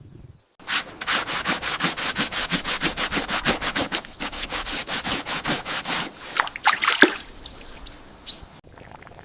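Rapid rhythmic scraping, about six strokes a second, then a few louder, irregular scrapes and knocks near the end.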